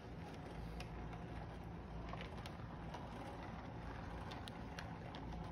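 Electric model train running on its track: a steady low motor hum with scattered light clicks of the wheels and cars over the rails.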